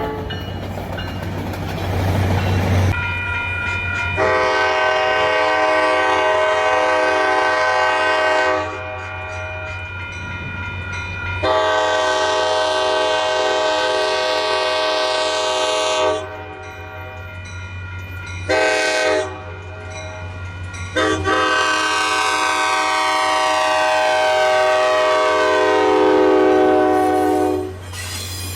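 Altamont Corridor Express locomotive's multi-chime air horn sounding the grade-crossing signal: two long blasts, a short one, then a final long one. A steady low rumble goes on beneath and between the blasts.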